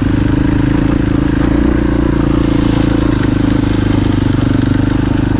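Dirt bike engine running at a steady, low speed, its pitch holding nearly level.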